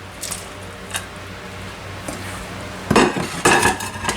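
Kitchen clatter as chopped potatoes are tipped and scraped from a dish into a pot: a couple of light knocks in the first second, then a quick run of clinking and knocking of dish and utensil from about three seconds in.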